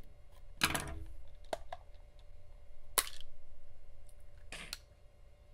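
Plastic case of a Protech MAS830L digital multimeter being prised apart by hand: a few sharp clicks and crackling snaps, the sharpest about three seconds in, as the stuck back cover comes free of its clips.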